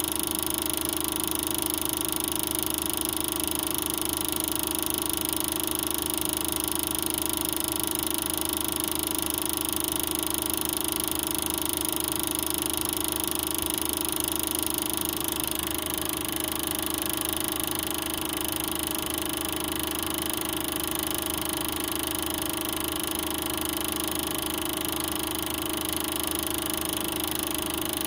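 Super 8 film projector running: a steady, unchanging mechanical whirr with a constant hum and a high whine.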